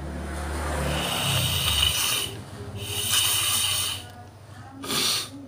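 A person's noisy, rasping breaths through the nose and throat: two long snoring-like draws about a second each, then a short one near the end.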